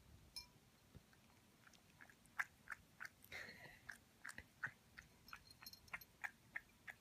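A cat licking ice cream from a bowl: faint, quick wet lapping clicks, a few at first and then about three a second from about two seconds in.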